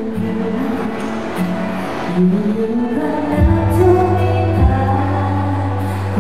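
A woman singing a Thai pop song into a handheld microphone over backing music. About halfway through, a deep bass and a drum beat come in under the voice.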